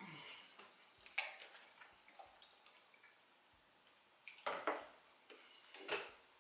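Faint handling of a plastic juice bottle and a drinking glass: scattered light clicks and taps, then juice poured into the glass about four seconds in, and a knock as the bottle is set down on the wooden table near the end.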